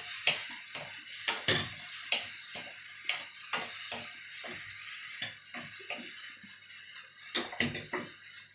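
A utensil clinking and knocking against a pan while food is stir-fried, with irregular knocks two or three a second over a steady hiss.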